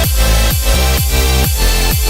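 Electronic dance music with a heavy, steady beat of about two kicks a second and sustained synth tones.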